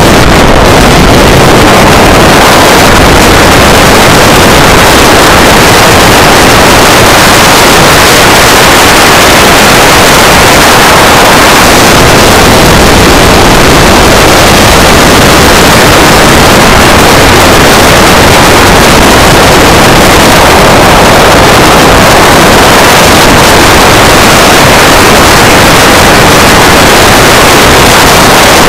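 DJI S800 hexacopter's motors and propellers heard from its onboard camera, mixed with wind buffeting the microphone: a very loud, steady rushing noise that does not change.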